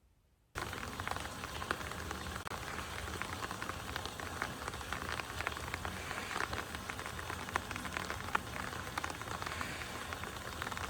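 Steady rain with a dense patter of drops on a surface. It starts abruptly about half a second in.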